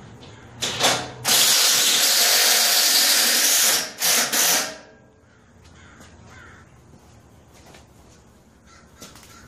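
Cordless drill working through aluminum diamond plate into the steel trailer frame: a brief burst, then one long run of about two and a half seconds with a hissing screech of metal, then two quick short bursts.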